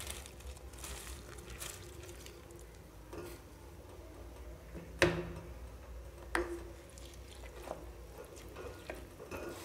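Soaked basmati rice sliding into simmering liquid in a pressure cooker, with soft wet splashing and a few sharp knocks of utensils against the pot. The loudest knock comes about five seconds in.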